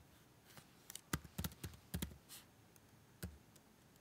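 Computer keyboard typing: an uneven run of separate keystrokes, several in quick succession in the middle and a lone one near the end.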